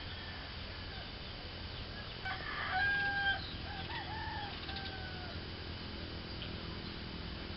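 A rooster crowing, with a long held note about two to three seconds in and shorter calls after it, over a steady low rumble.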